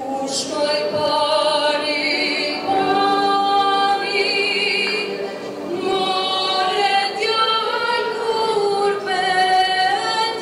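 A group of women singing a folk song together in long, held, wavering notes, with no instruments heard.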